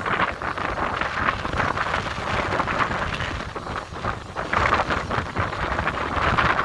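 Jet blast from an airliner's engines at takeoff thrust, a loud rushing roar that buffets the microphone as wind, surging and easing.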